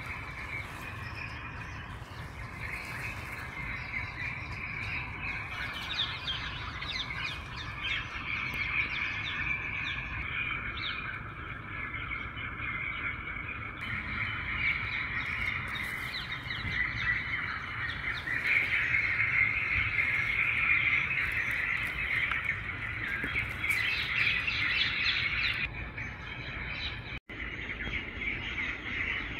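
Many birds chirping and calling at once, a steady dense chatter, over a low rumble. The sound cuts out for an instant near the end.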